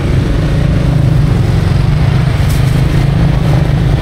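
Steady low rumble of motor traffic running close by, with a few faint clicks about two and a half seconds in.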